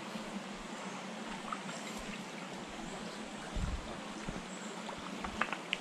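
Shallow, rocky mountain creek trickling over stones as a steady watery hiss. A brief low thump comes about three and a half seconds in, and a few light clicks near the end.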